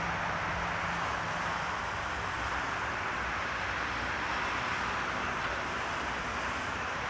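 Steady outdoor rumble and hiss by a railway line, with a distant diesel locomotive's low engine hum that fades out about two seconds in.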